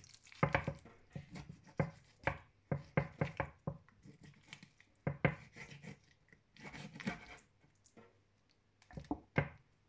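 Kitchen knife cutting raw chicken thighs off the bone on a wooden cutting board: irregular short knocks and scraping strokes of the blade against the board, with brief pauses between them.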